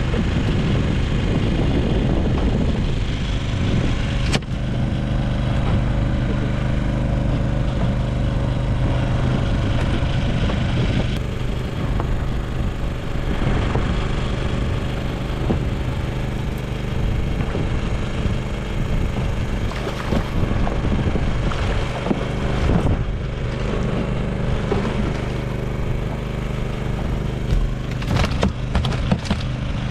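An engine running steadily at an even speed, a low constant drone, with a sharp click about four seconds in and a few short knocks near the end.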